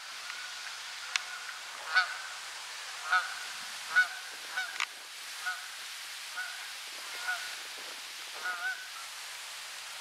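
Canada goose honking in flight: about a dozen short honks at an irregular pace, loudest about two and four seconds in and fewer toward the end. Two brief sharp clicks, near one second and near five seconds in.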